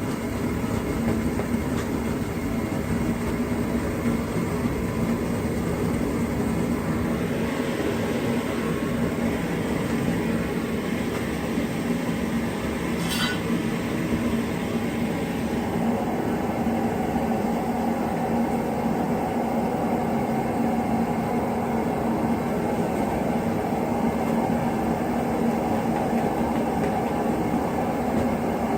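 DIY aluminium-melting foundry furnace running as it heats up: a steady, loud roar with a constant low hum, and a single sharp click about halfway through.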